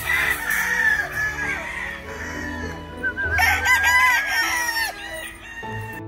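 A gamefowl rooster crowing twice, the second crow starting about three seconds in, over background music.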